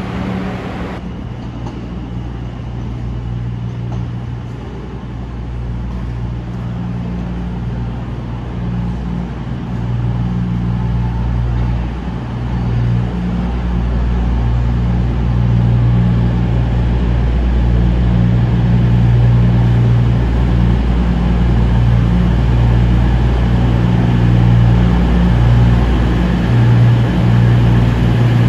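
CrossCountry Class 221 Voyager's underfloor diesel engines running with a steady low hum. They grow steadily louder as the train moves in close alongside.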